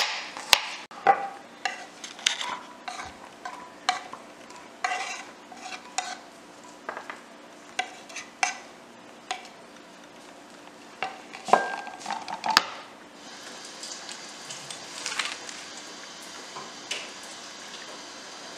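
Kitchen knife chopping garlic cloves on a wooden cutting board: sharp knocks at irregular intervals for about the first nine seconds. A few louder knocks follow around twelve seconds in, then only a faint steady hiss.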